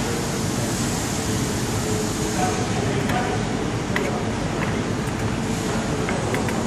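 Steady, loud machinery and ventilation noise of a factory hall, with a few light clicks from small metal parts being handled.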